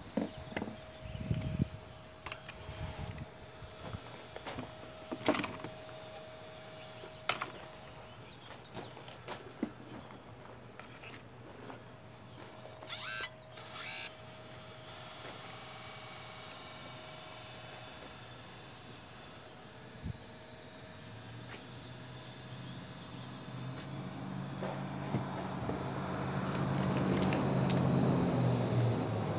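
A Kabolite RC hydraulic excavator at work: a steady high whine from its electric pump, with a few sharp clicks from the working parts in the first several seconds. About two-thirds of the way in, a lower, heavier pump sound builds and is strongest near the end.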